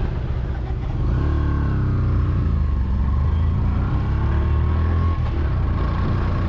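Motorcycle engine running and picking up speed, its pitch rising and falling, over a heavy low rumble that gets louder about a second in.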